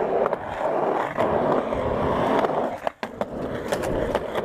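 Skateboard wheels rolling on the concrete of a skate bowl. The rolling cuts out briefly about three seconds in, followed by a few sharp clacks.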